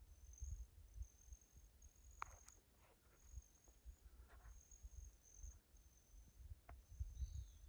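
Near silence: a faint, high-pitched insect trill repeating in short runs, over a low rumble, with a few soft ticks.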